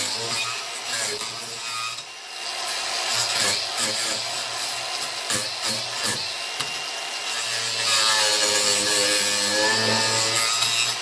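Angle grinder fitted with a chainsaw-chain cutting disc, running and cutting into wood, the chain tearing and rasping through it. The motor's pitch sags under load and climbs back near the end, with a few sharp knocks in the middle.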